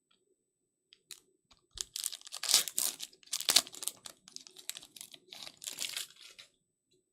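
Foil card-pack wrapper being torn open and crinkled in the hands: a run of crackling, tearing strokes lasting a few seconds, starting about two seconds in.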